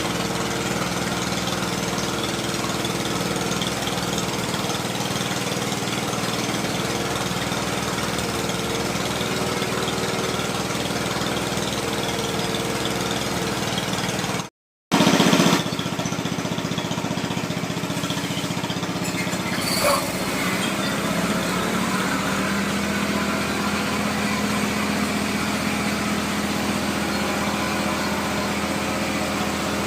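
Small engine running steadily, driving a water-well drilling machine. About halfway through the sound cuts out for a moment and comes back with a short louder burst.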